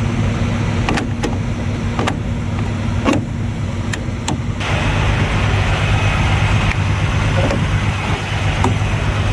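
Semi-truck diesel engine idling with a steady low hum, with a few sharp clicks in the first half.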